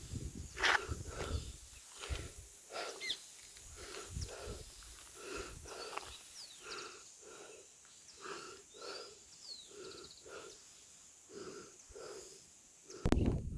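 Wild animals calling outdoors: a call repeating about every half second to second, with short falling bird chirps among it. A low rumble at the start and again near the end sounds like wind on the microphone.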